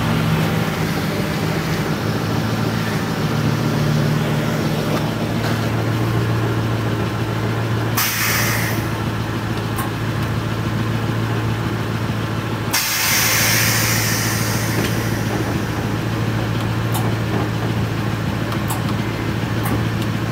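Pickup truck's V8 engine idling steadily through a muffler-deleted exhaust pipe, with a brief hiss about eight seconds in and again about thirteen seconds in.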